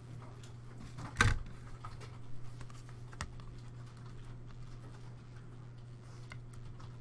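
Calculator keys being tapped in quick, irregular faint clicks while a column of figures is added up, with one louder knock about a second in, over a steady low hum.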